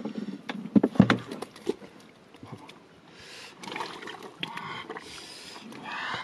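Hands digging into a wet mud bank and handling fish at a wicker basket: a cluster of sharp knocks and slaps in the first two seconds, then softer scraping and scuffling.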